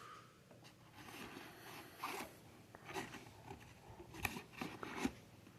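Faint handling of hand tools taken from a tool bag: a few light clicks and knocks of metal and plastic tools with brief scraping and rustling.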